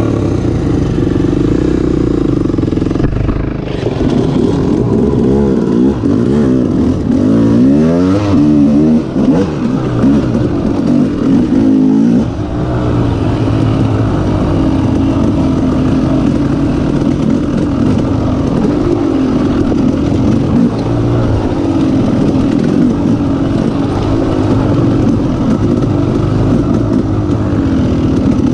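Honda 250X ATV's single-cylinder four-stroke engine running, its revs climbing and dropping again and again, with the quickest swings about a quarter of the way in.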